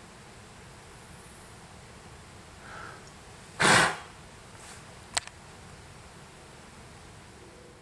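A deer gives one loud, short, breathy alarm snort about three and a half seconds in. A fainter sound comes just before it, and a sharp click follows about a second and a half later.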